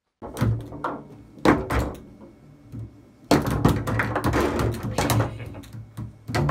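Foosball table in play: the ball knocked about by the figures and off the table walls, with rods clacking against the bumpers. A few separate knocks at first, then a fast, dense run of knocks from about three seconds in.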